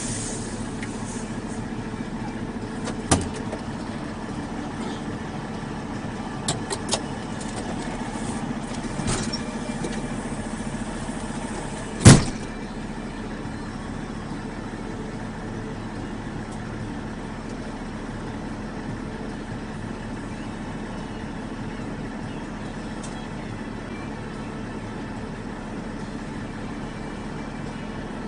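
Logging truck's diesel engine running with a steady drone, broken by one loud sharp bang about twelve seconds in and a few fainter knocks before it.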